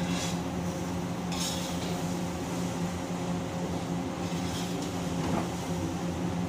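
Steady hum of a commercial kitchen's exhaust hood, with a long metal ladle scraping and stirring in a large wok three times: near the start, at about a second and a half, and at about four and a half seconds.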